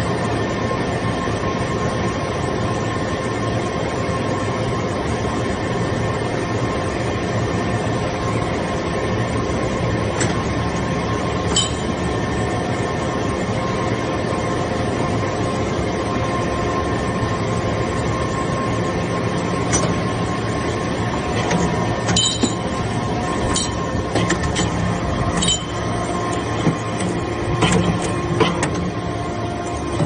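Hydraulic metal-chip briquetting press running: the steady hum of its hydraulic pump motor, with constant tones. Scattered sharp metallic clinks start about twelve seconds in and come more often toward the end.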